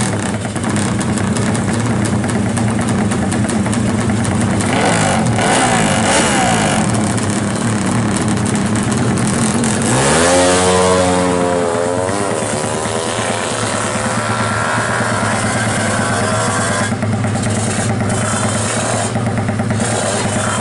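Drag-racing motorcycle engine revving hard at the start line, then launching about ten seconds in, its pitch sweeping up and dropping back through the gear changes as it accelerates away; a steady engine drone continues afterwards.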